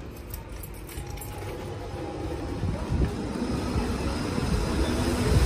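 Electric roller shutter on a shop front being raised: its motor runs with a low rumble that grows steadily louder, and a low hum joins in about halfway.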